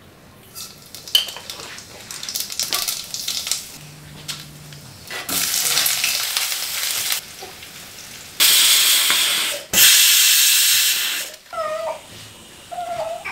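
Tempering for sambar frying in hot oil in a stainless steel kadai: mustard seeds crackle and pop, then come long loud bursts of hissing sizzle as more goes into the hot pan, with stirring.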